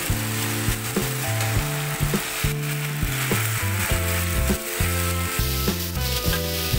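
Chilli-garlic sauce sizzling in hot oil in a frying pan as a metal spatula stirs it, just after water has gone in. Background music with a stepping bass line plays under it.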